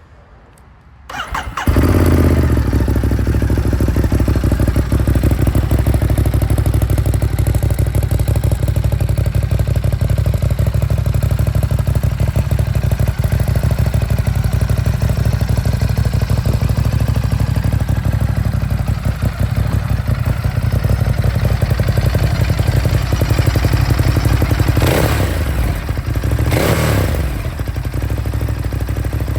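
Ducati Monster SP's 937 cc L-twin engine, fitted with a Termignoni slip-on exhaust and the catalytic converter removed, starting about a second in and settling into a steady, deep idle. Near the end it is blipped three times, each rev rising and falling quickly.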